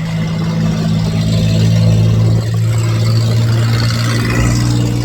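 A vehicle engine idling steadily, with wind noise on the microphone.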